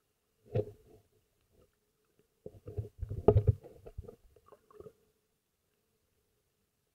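Muffled underwater knocks and gurgles picked up by a submerged camera, with one short burst about half a second in and a cluster of thumps from about two and a half to five seconds in, over a faint steady hum.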